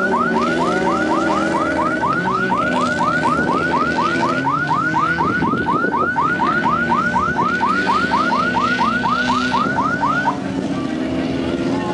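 Car alarm sounding a fast series of rising chirps, about four a second, which stops suddenly near the end; engines run steadily underneath.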